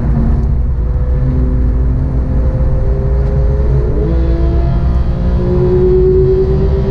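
Sports car engine heard from inside the cabin while driving on a race track, its pitch climbing slowly as the car accelerates, with a change in pitch about four seconds in before it climbs again. Heavy road and tyre rumble runs underneath.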